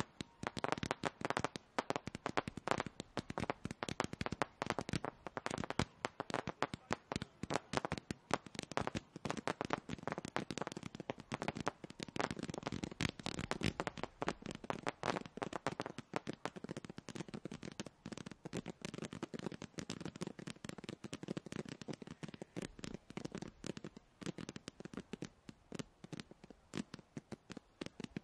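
Fireworks display crackling: a dense, unbroken stream of small rapid pops from bursting effects.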